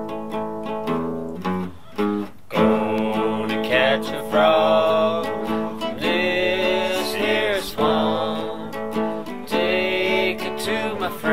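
Background music: acoustic guitar with a singing voice that comes in about two and a half seconds in.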